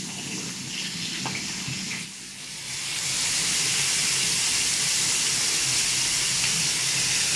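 Marbled beef schnitzels sizzling in hot oil in a frying pan: a steady frying hiss that grows louder about three seconds in, with a light click of a fork on the meat about a second in. A low hum from a range hood fan on its lowest setting runs underneath.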